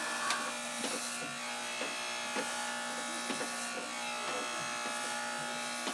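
Electric hair clippers buzzing steadily as they shave a boy's hair close to the scalp, with faint clicks now and then.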